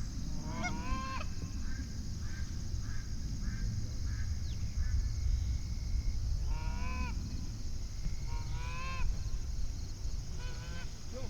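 Goose honking: groups of rising-and-falling honks near the start, in the middle and near the end, with a run of short, evenly spaced clucks in between. A low rumble runs underneath.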